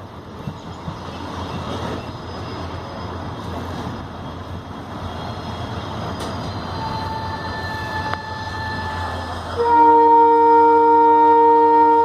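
Train running with the steady low hum of an EMD WDP-4 diesel locomotive. Near the end the locomotive's horn sounds loud and steady for about two seconds, a chord of several tones.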